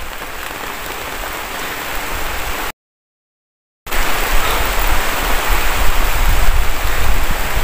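Heavy rain falling on forest foliage, a steady hiss. Near the middle the sound drops out completely for about a second, then comes back louder with a low rumble underneath.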